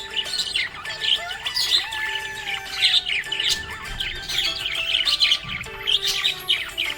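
Budgerigars chirping and warbling in a busy, continuous stream of quick high chirps and short whistles. Under them runs background music of held notes that step in pitch.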